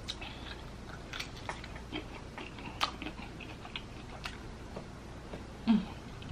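Close eating sounds: scattered soft clicks and wet smacks of chewing and of fingers handling buttery shrimp and boil food, with a short low hum near the end.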